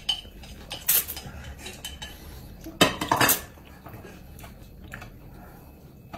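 Chopsticks and ceramic bowls and plates clinking and knocking during a meal: a few scattered knocks, with the loudest run of several knocks about three seconds in.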